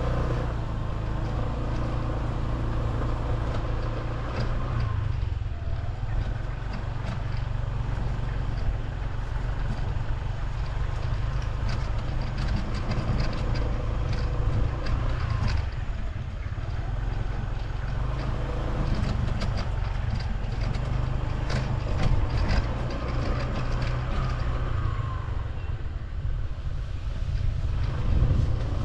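Honda ADV150 scooter's single-cylinder engine running steadily while riding a rough dirt track, with frequent short clicks and knocks over the engine hum.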